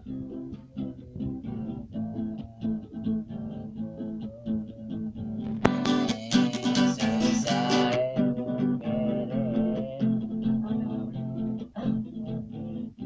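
Acoustic guitar strummed in a steady rhythm. About six seconds in there is a sharp knock, followed by a louder, brighter stretch lasting about two seconds.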